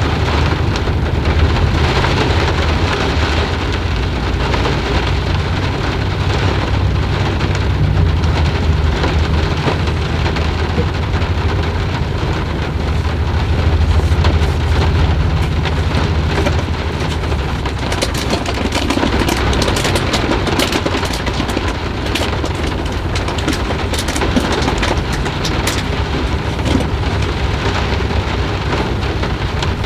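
Steady rain with a low rumble of thunder underneath. A little past halfway, a run of sharp crackling drop hits stands out for several seconds.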